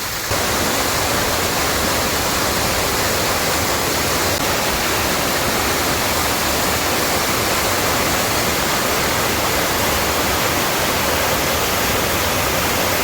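Waterfall: a steady, even rush of falling water, stepping up a little in loudness just after the start.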